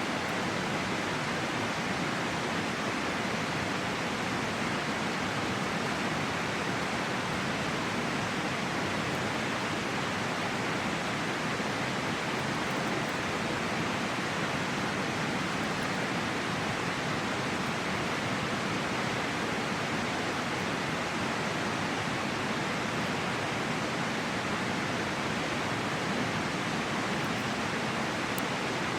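River water rushing steadily, an even wash of noise with no change.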